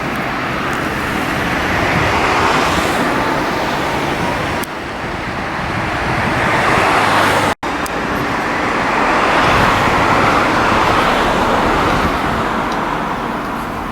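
Road traffic noise: vehicles passing on a road, the tyre and engine noise swelling and fading. It drops out suddenly for an instant about halfway through.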